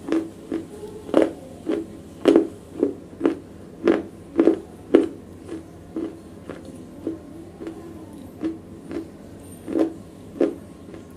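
Close-miked chewing of wet broken black slate: a regular run of crisp crunches, about two a second, louder in the first half and softer after it.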